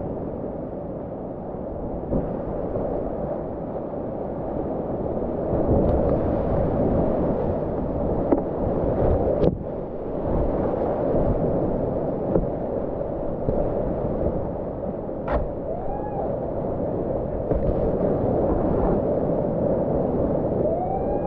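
Whitewater rapids rushing and splashing close around a kayak, a steady, muffled roar. A few sharp knocks stand out, the loudest about nine and a half seconds in.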